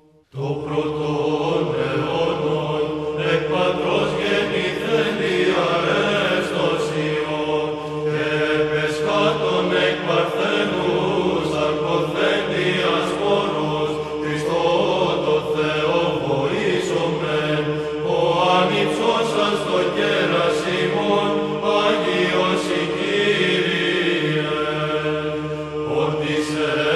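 Byzantine choir chanting a Greek Orthodox Christmas hymn: a moving vocal melody over a steady held drone (the ison). The chant begins about half a second in, after a brief silence.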